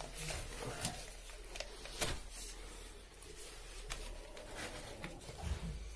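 PVC drain pipe and elbow fittings being handled and shifted among broken concrete rubble while an elbow is set at a new angle: scattered light knocks and scraping, with a handful of sharp clicks.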